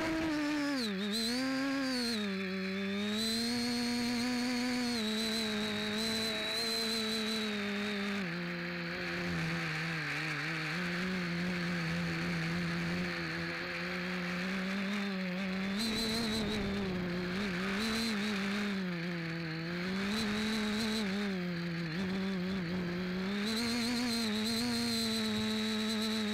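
FPV quadcopter's electric motors and propellers whining, recorded by the onboard camera, the pitch rising and falling as the throttle changes, over a steady rush of air on the microphone.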